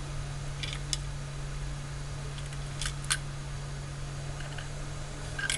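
A steady low electrical hum with a few small, sharp clicks: a pair about a second in, another pair around three seconds in, and one more near the end.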